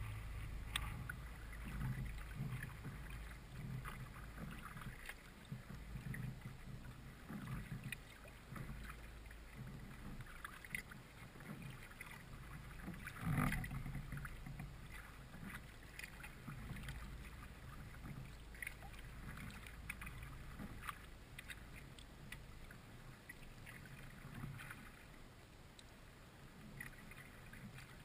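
Kayak paddle strokes, the blades dipping and splashing in the creek water with drips in between, over a low rumble. One louder thump about halfway through.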